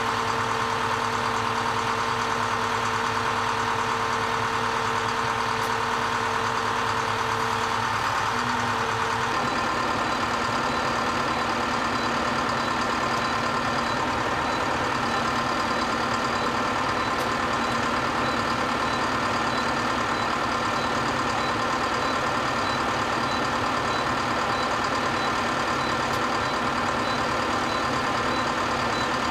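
Trailed sugar beet cleaner-loader and its tractor running steadily in the field. About nine seconds in the steady low hum drops away, leaving a noisier, even machine sound.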